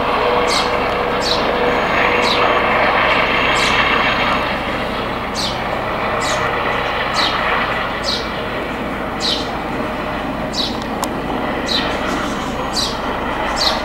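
Police helicopter flying low overhead: a steady wash of rotor and turbine noise. Short high chirps recur about once a second over it.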